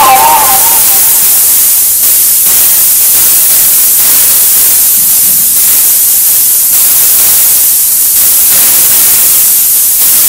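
Loud, steady static hiss, strongest in the highest treble, with no pitched content. The last notes of the distorted music fade out within the first second.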